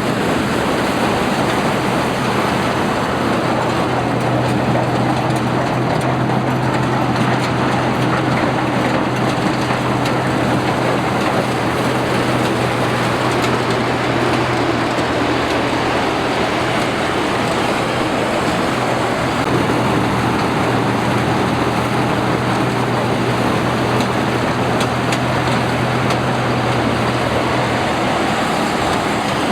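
Combine harvester running steadily: a constant low engine hum under loud, even machine noise. The hum strengthens a few seconds in and eases off near the end.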